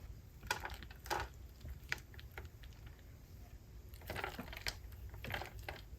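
Soft, scattered taps and crinkles, six or seven over a few seconds, as shredded cheese is sprinkled over tostadas on crisp fried shells.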